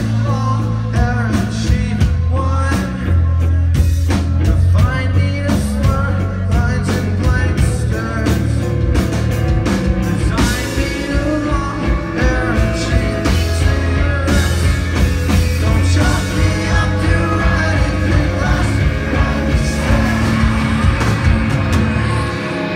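Live rock band playing loud, with electric guitars, bass, drum kit and singing, heard from inside the crowd. The drums hit densely through the first half, then the guitars carry on more sustained.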